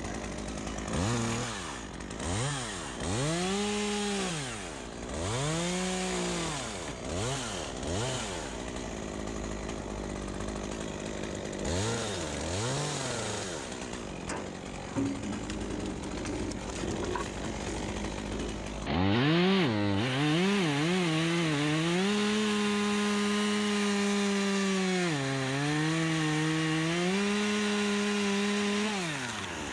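Two-stroke chainsaw revved up and down in short bursts several times. Then, from about two-thirds of the way through, it is held at full throttle while cutting poplar wood, its pitch sagging briefly under load before it drops off near the end.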